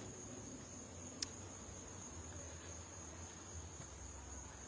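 Insects trilling steadily in a faint, continuous high-pitched drone, with a single soft click about a second in.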